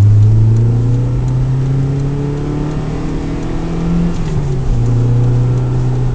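Saab 9000's engine pulling under acceleration, heard from inside the car: the engine note climbs slowly in pitch, falls back about four seconds in, then holds steady.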